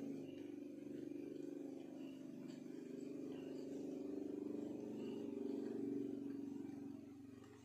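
A motor vehicle's engine, a low steady drone that comes up at the start and fades away near the end.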